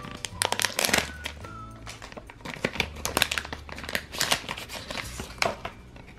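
A foil My Little Pony blind bag crinkling in a rapid run of sharp crackles as it is handled and torn open. Background music plays underneath.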